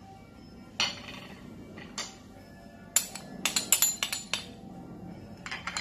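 A metal spoon clinking and scraping against a small ceramic ramekin to knock the cornflour out, with single clicks about one and two seconds in and a quick run of clinks from about three seconds in. Background music plays under it.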